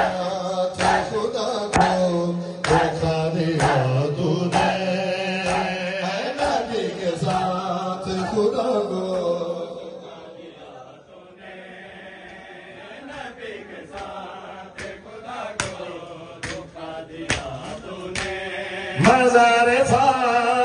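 A crowd of men chanting a mourning lament (noha) in unison, with chest-beating (matam) strikes landing together about once a second. The chanting and strikes drop quieter in the middle, then pick up again, and near the end a lead reciter's amplified voice comes in loudly over them.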